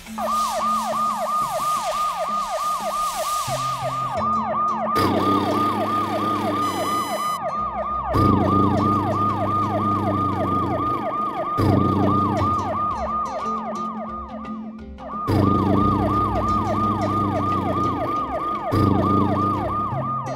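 A fast yelping electronic siren, its pitch sweeping up and down about three times a second, with a brief break about three-quarters of the way through. Background music with a bass line plays underneath from about five seconds in.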